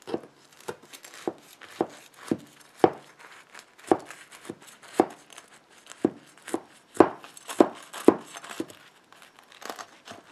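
A sharp kitchen knife sawing through a tray of joined soft slider buns and cheeseburger patties, in short strokes at about two a second.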